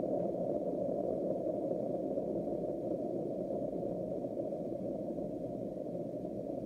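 Deep, muffled rumble of a huge explosion, a steady low roar with no high sound in it, slowly fading.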